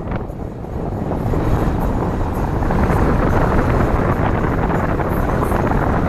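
Steady rush of a car driving along a road, with wind buffeting a microphone held outside the car. The level dips briefly just after the start, then builds and holds steady.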